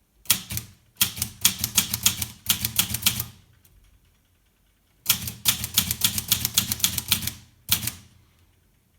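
Olivetti Lettera 32 manual portable typewriter being typed on: rapid key strikes in runs of a couple of seconds, with a pause of nearly two seconds in the middle.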